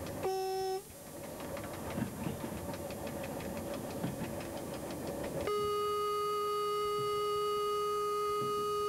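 Train running noise inside the driver's cab, with wheels ticking over the rails. About half a second in there is a short beep. At about five and a half seconds a steady, continuous warning tone from the KVB speed-control system begins and holds. This is the signal given as the train leaves the zone equipped with speed-control beacons.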